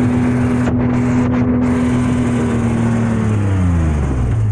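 Logging truck's engine running hard at steady high revs, then the revs fall away near the end.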